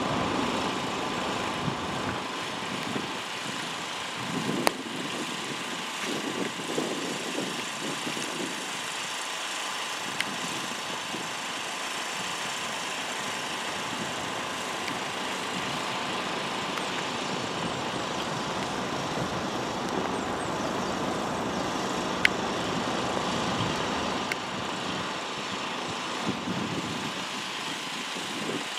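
A vehicle engine idling steadily under outdoor noise, with a couple of sharp clicks.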